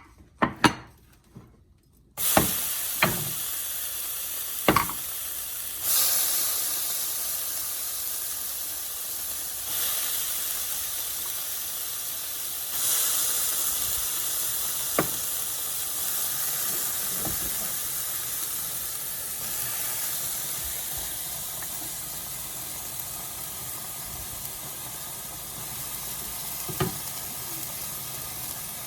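Butternut squash and evaporated milk sizzling and hissing in a hot pan, starting suddenly about two seconds in and swelling now and then, as the milk cooks off. A few sharp knocks sound against the pan.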